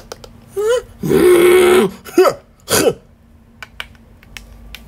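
A person's voice making gruff, wordless vocal noises: a short rising cry, a rough sound held for about a second, then two quick sliding cries. Faint clicks of small plastic toys being handled follow.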